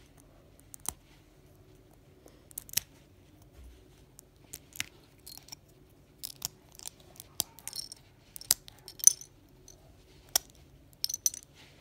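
Plastic LEGO bricks clicking and clattering as they are handled and picked through: an irregular scatter of sharp little clicks.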